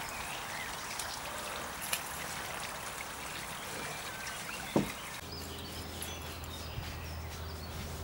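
Outdoor ambience: a steady rustling hiss with small bird chirps. A single sharp knock a little under five seconds in, after which a steady low hum sets in beneath the hiss.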